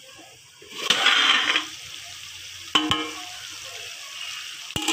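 Chicken chukka sizzling in an aluminium kadai on a gas stove as its plate lid is lifted after twenty minutes of covered cooking: a rush of hiss about a second in, then steady sizzling. Two sharp metal knocks come near the middle and just before the end.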